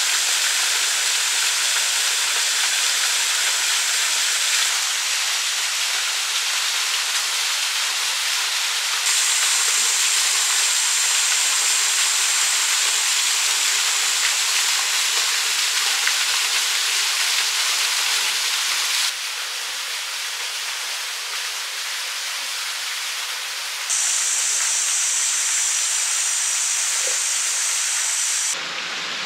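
Small waterfall pouring into a rock pool: a steady rush of falling water whose level and tone jump abruptly up and down a few times.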